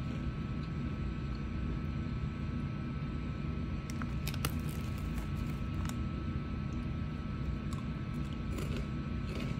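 A steady low rumble, with a few brief crinkles of a foil Hot Cheetos snack bag from about four seconds in as a hand reaches into it.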